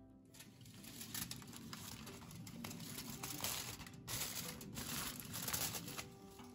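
Sheet of aluminium foil crinkling and crumpling as it is pressed and folded by hand. The rustle lasts several seconds, with a short break about four seconds in.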